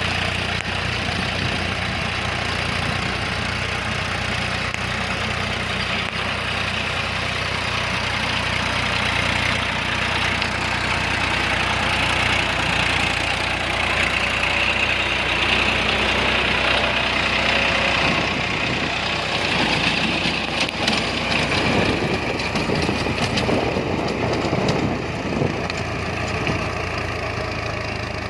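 Massey Ferguson 246 DynaTrac tractor's diesel engine running steadily, with a high whine that swells in the middle and a rougher, pulsing sound near the end.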